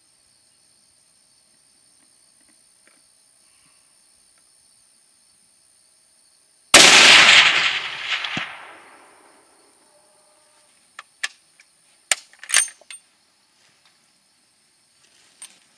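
A single shot from a .338 Edge rifle firing a 300-grain Sierra MatchKing: one loud sudden crack about seven seconds in, whose echo dies away over about three seconds. A few short sharp clicks follow a few seconds later, over a steady high insect buzz.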